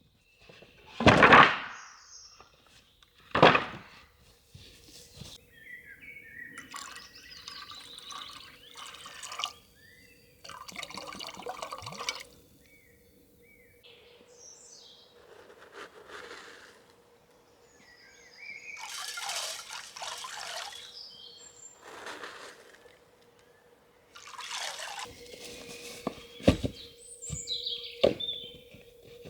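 Liquid being poured and splashing in several separate pours, with two loud sharp sounds in the first few seconds. A faint steady hum runs underneath.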